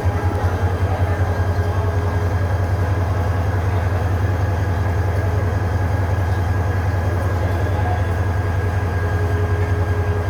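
Diesel train engine running steadily at a railway station, a loud low rumble with a faint steady whine above it.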